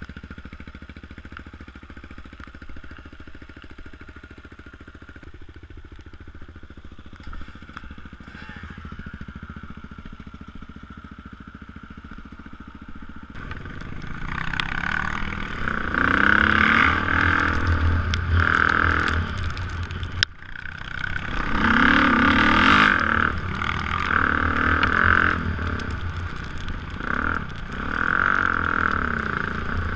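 Off-road dirt bike engine running quietly at first. About halfway through it pulls away and revs up and down as it rides over a rocky trail, with one sharp knock shortly after.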